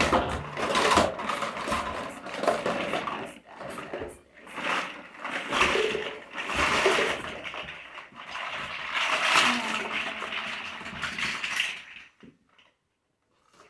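A tubful of children's toys clattering and rattling loudly, a dense jumble of knocks and clicks that stops about a second and a half before the end.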